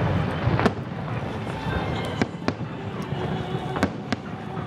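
Fireworks display: aerial shells bursting overhead, a string of sharp bangs, often about half a second apart, over a continuous low rumble.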